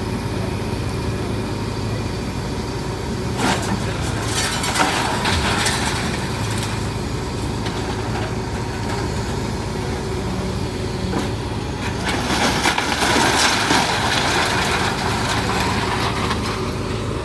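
Heavy machine's diesel engine running steadily during a house demolition, with stretches of cracking and crunching from the house being torn apart about three seconds in and again from about twelve seconds.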